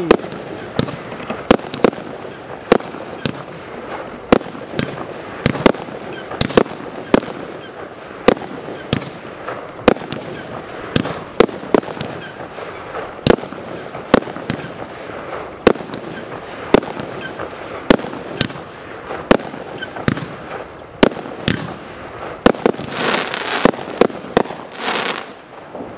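Fireworks cake (PGE Cake G) firing its tubes in quick succession: sharp bangs nearly two a second over continuous crackling hiss from the bursting stars. Near the end comes a louder stretch of dense hiss lasting about two seconds.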